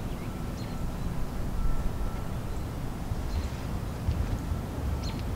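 Wind buffeting the microphone outdoors: an unsteady low rumble, with a few faint high chirps.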